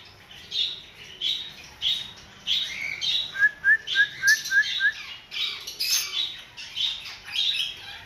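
Small parrots chirping and squawking over and over in quick short calls, with a fast run of six short rising chirps around the middle.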